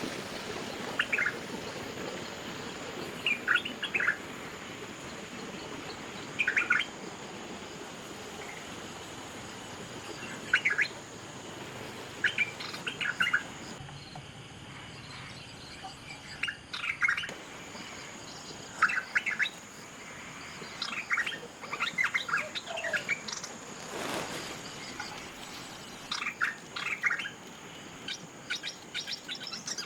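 Small wild birds chirping in short clusters of quick high notes, a burst every second or two, over a steady high-pitched insect whine.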